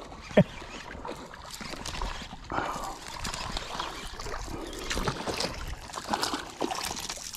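A hooked fish thrashing and splashing at the water's surface as it is reeled in toward a kayak, with a short knock about half a second in.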